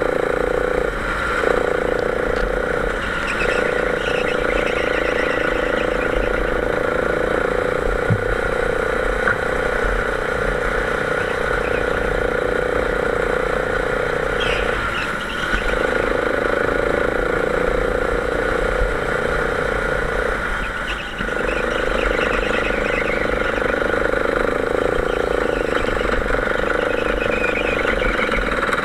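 Go-kart engine running at a steady high note under throttle, heard close up from a camera on the kart. It dips briefly a few times.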